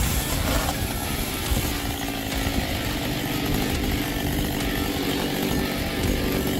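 Two-stroke chainsaw engine running steadily at high revs.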